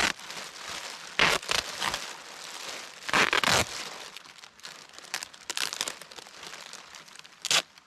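Duct tape being pulled off the roll in several short, loud rips as it is wrapped around a plastic garbage-bag sleeve, with the thin plastic bag crinkling between the rips.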